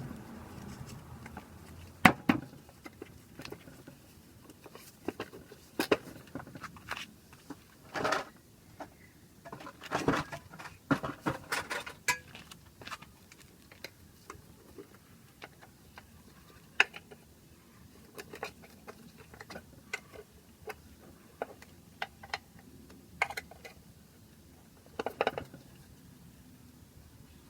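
Metal tools and motorcycle drive-train parts clinking and clanking now and then while being worked on: irregular sharp knocks and clicks, the loudest about two seconds in, with clusters around eight to twelve seconds and near the end.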